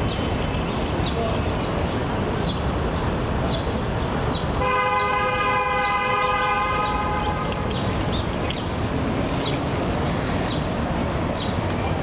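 Steady city traffic noise. About five seconds in, a vehicle horn sounds once, held for about two and a half seconds.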